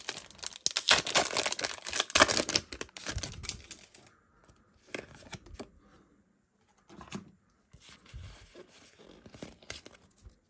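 Foil booster pack wrapper being torn open and crinkled, a loud run of tearing and crackling for the first few seconds, then quieter rustling as the cards are handled.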